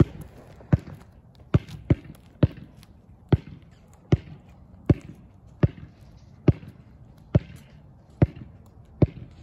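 A basketball dribbled on an asphalt street: a steady bounce a little more often than once a second, about a dozen bounces.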